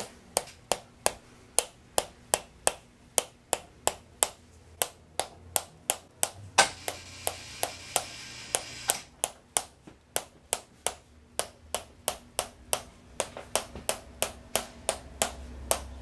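Hand-held chiropractic hammer tapping the metal head of an adjusting instrument pressed against the lower back: sharp, even taps at about three a second, one of them louder about six and a half seconds in. This is percussive work to loosen the lower back.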